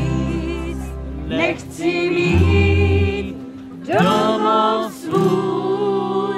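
Acoustic guitars strummed while two women sing, the voices coming in about a second and a half in and going on in phrases with short breaks.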